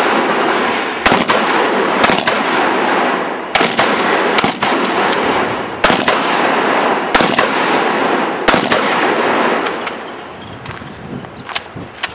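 12-gauge pump-action shotgun fired about seven times, roughly a shot every second or so, each blast trailing a long echo. The shooting stops about two-thirds of the way through, leaving a few fainter sharp cracks.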